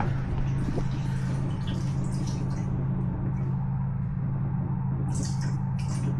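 Electric fuel pump running on a test output, pumping fuel out through the return-line hose into a plastic gas can: a steady low hum with irregular gurgling and sputtering of fuel and air at the hose end, a sign the tank is running low.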